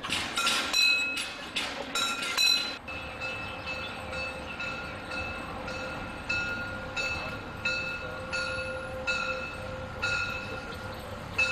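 Level-crossing warning bell ringing. At first it strikes loudly and irregularly while the hand-cranked barrier is worked; after a cut it rings softer and even, about two strikes a second, over the noise of an approaching steam locomotive.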